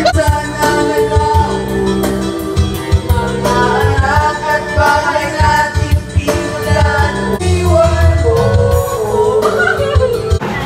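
A woman singing karaoke through a microphone and room speakers over a loud backing track with heavy bass, holding long drawn-out notes.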